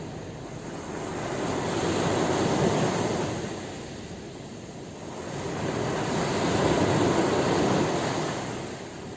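Ocean surf: waves rushing in and fading away, one swelling up around two seconds in and another around six seconds in.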